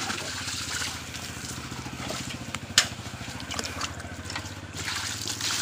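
Water splashing and sloshing in a metal bucket as it is hauled up out of a well and carried, with a sharp knock a little before halfway. A steady low engine hum runs underneath.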